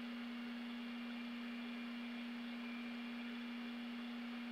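A steady low hum holding one pitch, over faint hiss.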